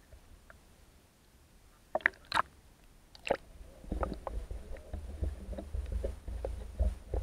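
An SJ4000 action camera in its waterproof housing is dipped into lake water. A few sharp splashes come about two seconds in. From about four seconds there is a muffled underwater rumble with frequent small knocks and clicks.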